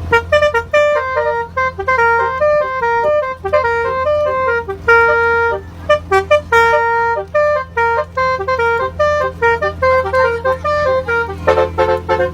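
Basuri telolet horn, a multi-trumpet electric horn, playing a quick tune one note at a time over a steady low hum. Near the end it switches to fast repeated chords.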